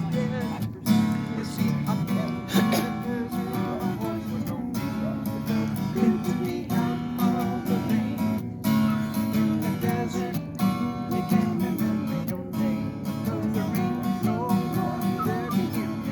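Acoustic guitar being strummed, playing chords in a steady rhythm.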